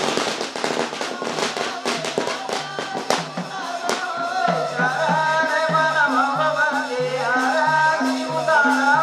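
Loud procession music: a dense crackle for the first few seconds, then a bending melody comes in over a bass line of short notes, about two a second.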